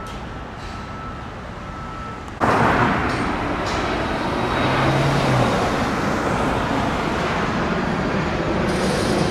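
Road traffic noise: a steady rush of passing vehicles that turns abruptly much louder about two and a half seconds in and stays loud.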